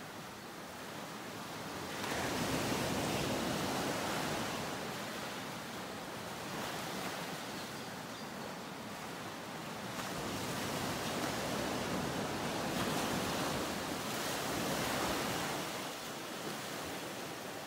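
Ocean surf: waves washing in as a steady hiss that swells louder about two seconds in and again about ten seconds in, then eases off.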